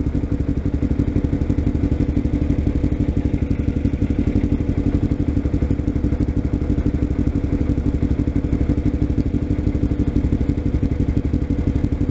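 Kawasaki Ninja 250 motorcycle engine idling steadily while the bike is stopped.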